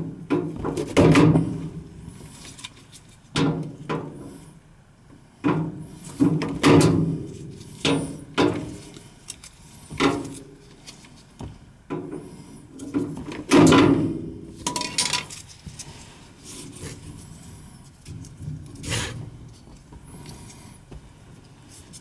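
Gloved hands working the wiring at a furnace condensate pump: irregular handling knocks, clicks and rubbing of wire and fittings against the pump.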